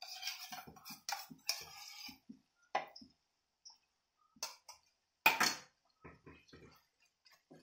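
A steel spoon scraping and clinking in a small steel bowl while scooping ghee into a nonstick pan of thick jackfruit halwa: a string of short irregular clinks and scrapes, the loudest a little over five seconds in.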